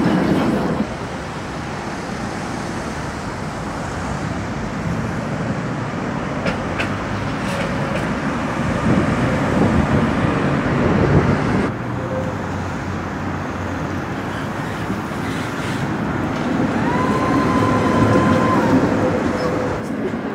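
Street noise from trams and traffic. An old Tatra T3 tram rolls past close by, loudest about nine to eleven seconds in. About twelve seconds in the sound changes abruptly to a steadier street hum, with a short held high tone near the end.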